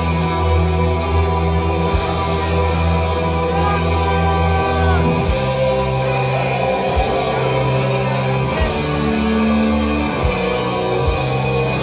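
Heavy metal music played loud through a concert PA: long held chords on electric guitar and bass that change every second or two, with only occasional hits.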